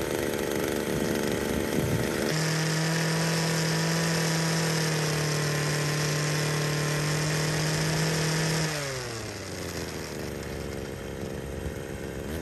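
Two-stroke engine of a hedge cutter running as it warms up after its low-speed (L) mixture screw has been tweaked. About two seconds in it speeds up sharply and runs steady at high revs, then near nine seconds it drops back to a lower, rougher idle.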